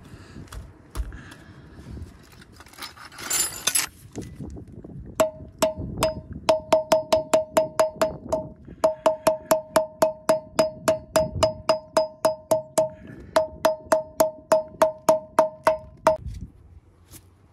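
Hammer tapping a steel grease cap onto a freshly greased front wheel hub of a 1976 Mercedes 240D, closing the bearing. The taps come at about four a second in several runs with short pauses, each one ringing with a clear metallic tone.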